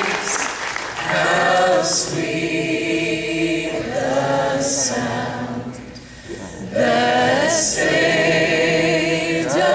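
A group of voices singing together in slow, held phrases, with a short dip between phrases about six seconds in.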